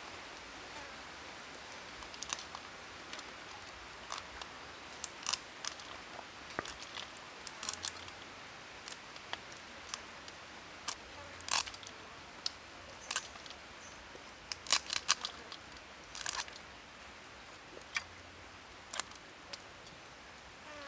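Fresh herb sprigs being stripped and snapped by hand, small pieces dropping onto a stainless steel tray: irregular sharp clicks and snaps, sometimes two or three close together, over a steady faint hiss.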